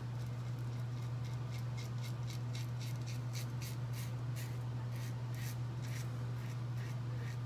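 Vintage Gillette Ball End Tech safety razor with an Astra blade scraping through stubble under lather, in short quick strokes several a second. Beneath it, the low roar of an air conditioner running steadily.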